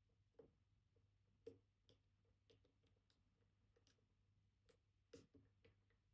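Faint, scattered clicks of a dimple-lock pick probing and lifting the pins of a Kaba Titan Combi dimple lock held under tension. The clearest come a little after the start, about a second and a half in, and near the end.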